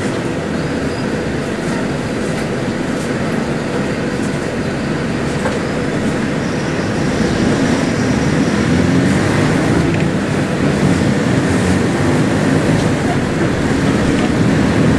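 Mercedes-Benz OF-1721L city bus engine running loud under way, a steady heavy rumble that grows louder about halfway through as the bus pulls harder.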